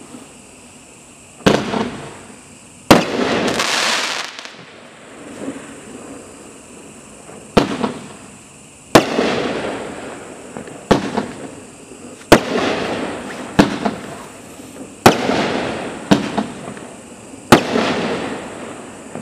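Dominator Shapeshifter consumer firework going off: about ten sharp bangs a second or two apart, each followed by a fading crackle.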